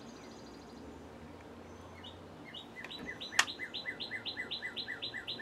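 A small bird calling a fast series of short falling chirps, about four a second, starting about halfway in. A single sharp click sounds once near the middle.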